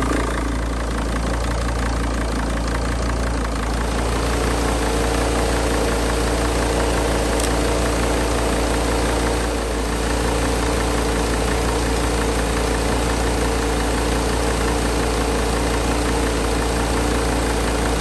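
Mercedes T1N Sprinter diesel engine idling steadily with its A/C compressor engaged. About four seconds in, a steady hum joins the engine noise and holds.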